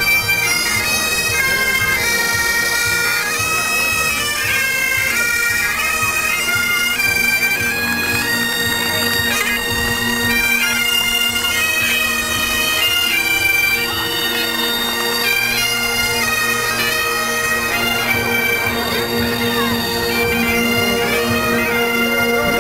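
Bagpipes playing a tune of held, stepped notes over a steady drone.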